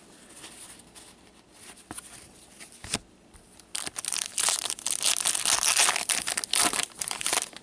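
A foil trading-card pack wrapper being torn open and crinkled by gloved hands. The dense crinkling starts about four seconds in and runs until just before the end, after a few soft clicks of cards being handled.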